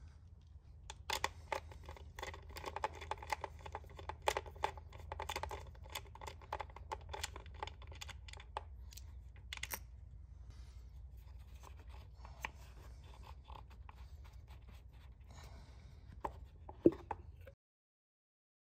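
Irregular metallic clicks and scrapes of a ratchet and socket extension being handled over the engine's spark plugs, thick for several seconds. It then goes quieter, with a low steady hum and one sharp click, before the sound cuts out completely near the end.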